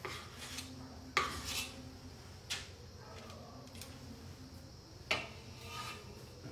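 A spoon scraping and clinking against a mixing bowl and baking tray while scooping scone dough into mounds, with three sharp clinks spread through among quieter scrapes.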